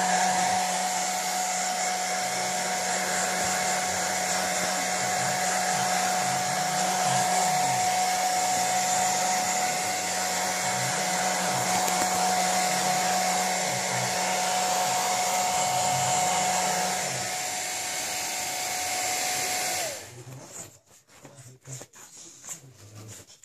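Hair dryer running steadily with a high whine, switched off about twenty seconds in, its pitch sliding down as the motor winds down; then soft rustling and scuffling.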